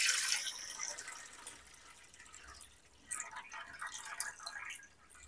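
Beef broth poured in a stream from a pot into a stainless-steel hot pot, splashing into the liquid below. The pour is loudest at the start and tapers off within a second or two, then a few small trickles and splashes follow.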